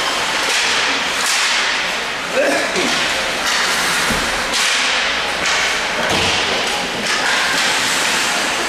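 Ice hockey skate blades scraping and carving the ice in repeated hissing strokes, with a low thud about four seconds in.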